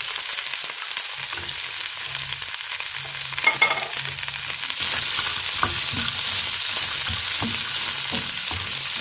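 Chopped vegetables sizzling in hot vegetable oil in a pan, the sizzle growing louder about five seconds in. A utensil clinks against the pan a little past three seconds, and a few knocks follow as it is stirred.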